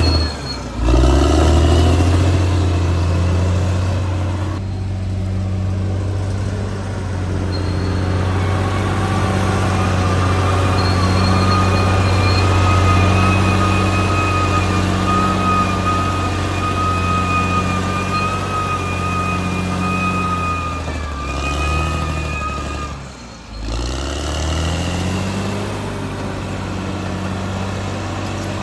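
Caterpillar D6R XL bulldozer's diesel engine running steadily, with a steady high whine over the low engine hum. The revs dip and climb back up twice, just after the start and about 23 seconds in.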